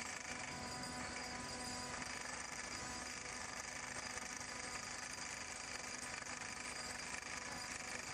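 Bruce SGV-200 hydraulic vibratory hammer running while driving a pile: a steady mechanical hum and rattle with several held tones, unchanging throughout.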